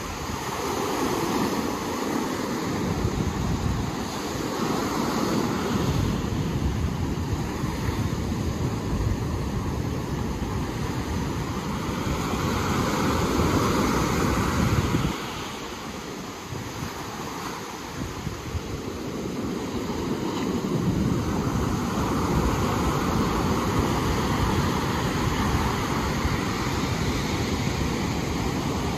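Ocean surf washing on the shore with wind buffeting the microphone; the noise swells and eases, dipping briefly about halfway through.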